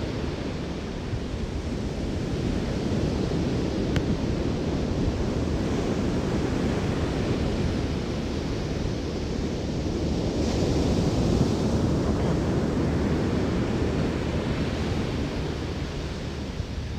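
Ocean surf breaking and washing up the beach, with wind rumbling on the microphone. The wash swells louder about ten seconds in.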